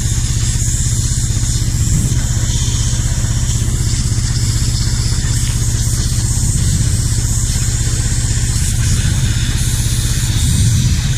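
Pressure washer running steadily. Its motor and pump give a low hum under the hiss of the high-pressure water jet spraying grease off an engine water pump.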